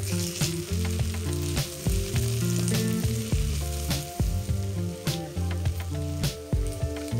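Food frying in hot oil in a pan, with a steady sizzle and occasional clicks of a utensil stirring.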